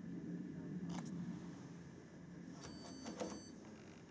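Handling clicks on a washing machine, then a short high electronic beep from its control panel about three seconds in, as the program is being set.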